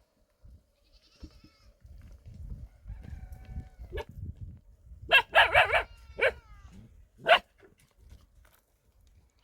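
Goats bleating: several short calls, the loudest cluster about five seconds in and another sharp call a couple of seconds later, over a low rumbling noise in the first half.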